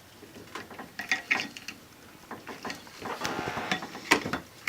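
Metal clicking and scraping as the split lower bushing of a motorcycle fork tube is pried open and wiggled off its groove with a thin pry tool, with a longer scrape a little past the middle and a sharp click near the end.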